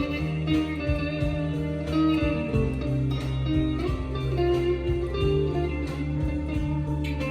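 Squier Bullet Stratocaster electric guitar played clean through a Fender Mustang LT25 amp on its Fender Clean channel: picked notes and chords ringing one after another.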